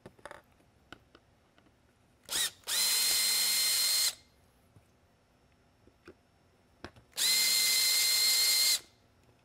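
Cordless drill/driver backing Phillips screws out of the back of an LED lighthead housing: two steady whining runs of about a second and a half each, the first after a brief blip of the trigger.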